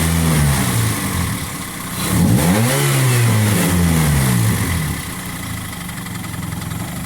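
2004 Toyota Corolla's petrol engine revved twice and dropping back to a steady idle, carrying an annoying engine noise that the owner first took for a connecting-rod knock and that his mechanic puts down to a worn timing-chain tensioner.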